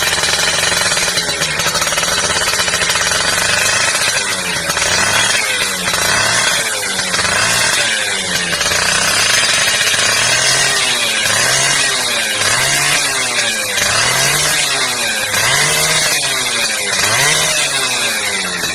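Yamaha F1ZR two-stroke single-cylinder moped engine running loudly through its exhaust. It holds a steady note at first, then is revved repeatedly from about four seconds in: about ten quick rises and falls in pitch, roughly one every second and a half.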